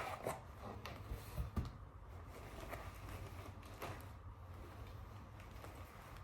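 Faint rustling and light clicks of packaging and fabric being handled as a jacket is lifted out of its box, with a few sharper handling noises about a second and a half in.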